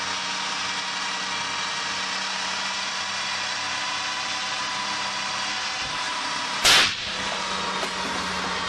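A diesel pickup engine running at a steady pitch, then a single loud bang about seven seconds in, typical of the engine blowing apart. The running note carries on after the bang.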